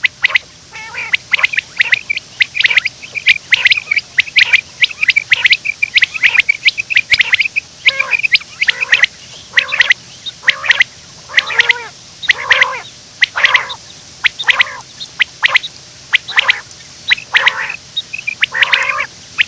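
Quail calling over and over: a quick string of sharp, high notes. In the second half, louder calls with notes that drop in pitch come about once a second.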